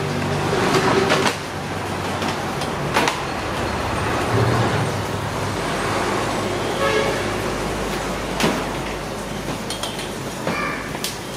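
Road traffic: steady vehicle noise with a low engine hum and a few sharp clicks.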